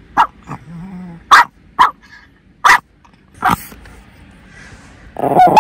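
A chihuahua giving about six short, sharp barks spread over three and a half seconds, then falling quiet. They are play barks aimed at a second dog that won't get up.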